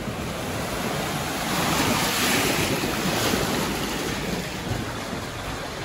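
Floodwater surging and splashing as the wave pushed up by a truck driving through the flooded street washes past. The rushing swells to its loudest about two to three seconds in, then eases.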